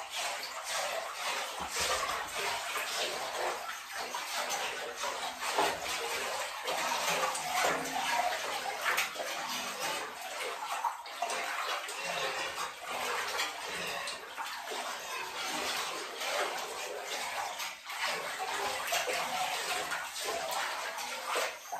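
Water in a full bathtub being stirred by hand, sloshing and splashing continuously.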